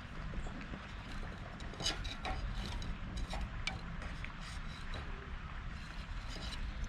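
Campfire crackling and snapping in irregular pops, over a steady low rumble.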